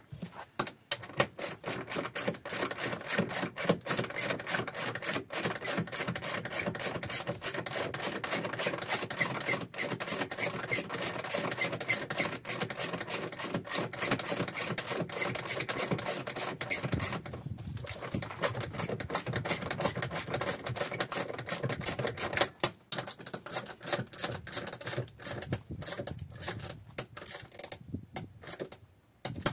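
Socket ratchet clicking rapidly as bolts on the seat's mounting base are tightened, with short breaks about seventeen and twenty-two seconds in.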